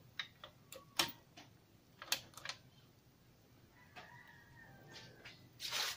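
A few light clicks as the repaired CRT TV is switched on and handled. A faint steady whine follows for about a second and a half past the middle, and a short rush of noise comes just before the end.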